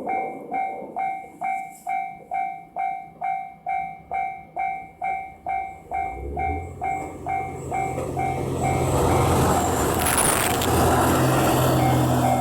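Railroad crossing warning bell dinging about twice a second. From about six seconds in, a diesel train approaches and passes over the crossing, its engine and wheel noise rising until it covers the bell.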